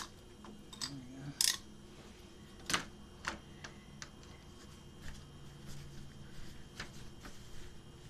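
Scattered sharp clicks and light knocks as a plastic refrigerator water line is cut with a utility knife and the old water inlet valve and tubing are handled. A faint low steady hum runs underneath.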